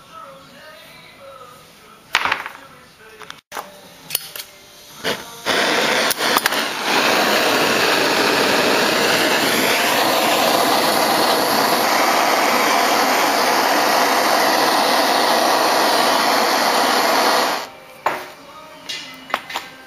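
Handheld gas torch flame hissing steadily for about twelve seconds while heating a piece of metal on a soldering block until it glows, then shut off suddenly; a few knocks and clicks of tools being handled come before it starts.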